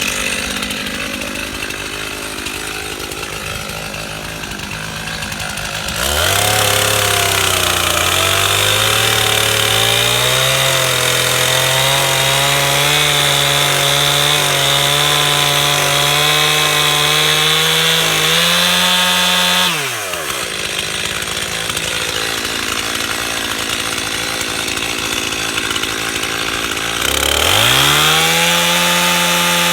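Stihl chainsaw idling, then revved to full throttle about six seconds in. It runs under load with a wavering pitch as it cuts into the trunk of a standing dead oak for about thirteen seconds. It drops back to idle, then revs up again near the end.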